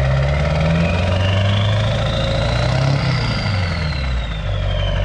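LB7 Duramax 6.6-litre V8 turbodiesel running with a freshly installed 64 mm RDS turbo. A high turbo whistle rises for about three seconds, then slowly falls as the engine settles back down near the end.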